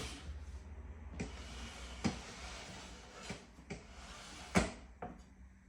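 Handling noises: about five light knocks and clicks spread over a few seconds, over a faint low hum.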